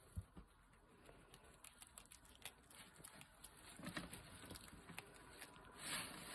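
Faint, rapid clicking crunches of a guinea pig chewing and tearing leafy greens, with a louder rustle of hay near the end.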